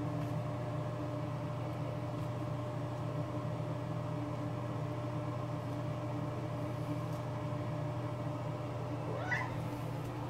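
Domestic cat giving one short meow that rises in pitch, near the end, over a steady background hum.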